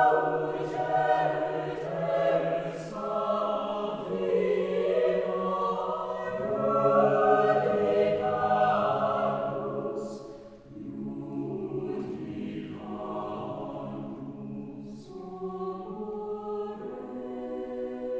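Mixed choir singing slow, sustained chords unaccompanied. The singing is fuller in the first half, dips briefly about ten and a half seconds in, then carries on more softly, with a sharp 's' sound about ten and again about fifteen seconds in.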